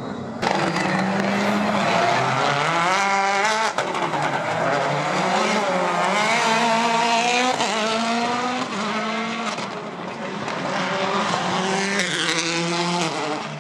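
Rally car engine under hard throttle, its pitch climbing and dropping back again and again as it goes up through the gears.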